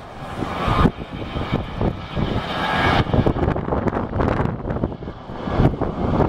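Jet engines of a Thomas Cook Airbus A321 running as it moves along the runway, a rushing roar strongest in the first three seconds. Wind buffets the microphone throughout.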